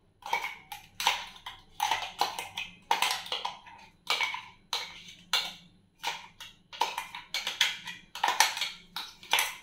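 A metal spoon scraping and tapping against the inside of a stainless-steel mixer-grinder jar, scooping out thick ground spice paste: a run of sharp, ringing clicks about two a second, unevenly spaced.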